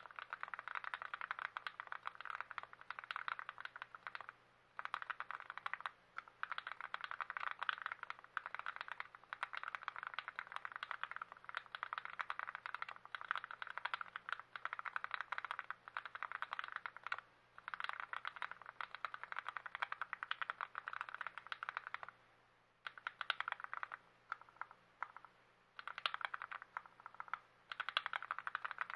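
Typing on a lubed TX66 custom mechanical keyboard: fast, continuous keystrokes with a few brief pauses.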